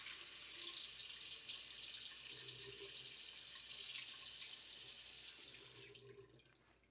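Bathroom sink faucet running, its stream splashing over a fountain pen section held under it and into the basin. The water is shut off near the end and the sound tails away.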